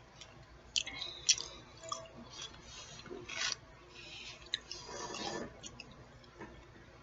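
Close-miked chewing and wet mouth sounds: irregular smacks and sharp lip and tongue clicks, the loudest a little over a second in.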